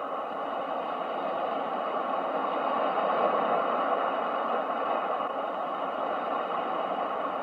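Ocean surf: a steady rush of wave noise that swells to a peak about three seconds in and then slowly eases.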